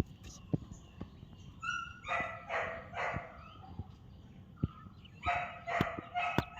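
Short, repeated animal calls in two bursts, about two seconds and five seconds in, with scattered light clicks between them.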